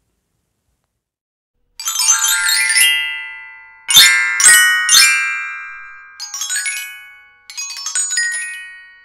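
Silence, then a bright chiming jingle begins about two seconds in: bell-like notes in quick runs, with three sharp strikes near the middle, each ringing out and fading.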